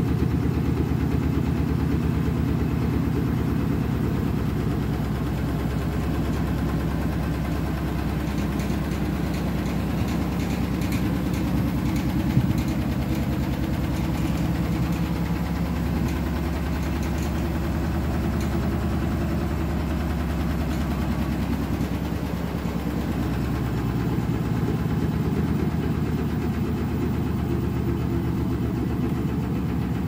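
Beko WTK104121W front-loading washing machine running with its drum turning under an unbalanced load, a low steady rumble, with one sharp knock a little before halfway.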